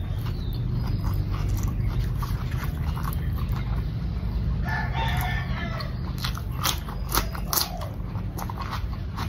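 Close-up eating: chewing, then crisp crunching bites into a fresh cucumber stick dipped in chili paste, three sharp crunches a little after the halfway point. A brief animal call sounds in the background about five seconds in.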